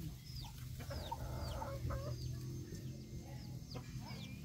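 Chickens calling nearby: a run of short, high, falling chirps, about three a second, with some lower clucking calls in the middle.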